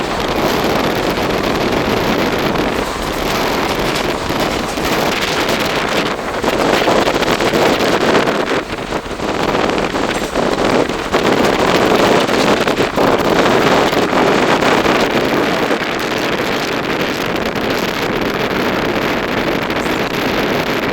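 Passenger train running at speed, heard from on board: a steady rumble of wheels on rails with wind buffeting the microphone.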